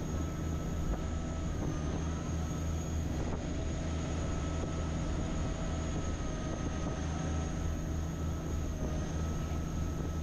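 Chao Phraya Express Boat's engine running steadily under way, heard on board: a constant low drone with a faint steady high whine above it.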